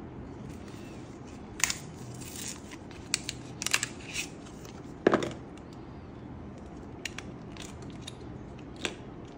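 Packaging and small accessories being handled while unboxing: scattered clicks and knocks with a few brief rustles, the loudest knock about halfway through.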